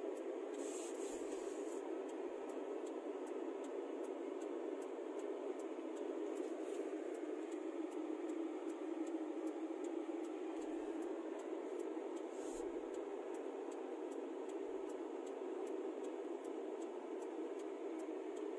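Steady road and engine noise heard from inside a moving car's cabin.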